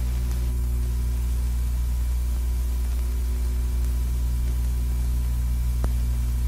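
Steady low hum and hiss of an old film soundtrack, with one faint short click near the end.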